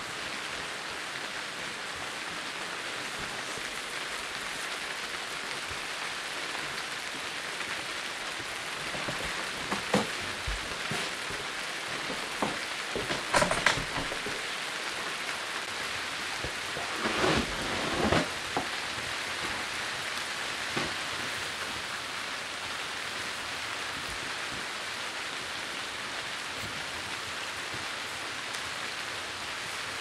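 Paper being handled and rubbed by hand on an inked linocut block, in a few short rustling bursts: one about a third of the way in, a cluster about halfway through, and the loudest a little later. Under them runs a steady, even hiss like rain.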